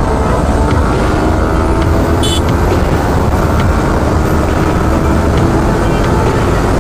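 Sport motorcycle engine pulling hard as the bike accelerates at highway speed, heard from the rider's seat under a heavy wind rumble on the microphone. A brief high chirp cuts in about two seconds in.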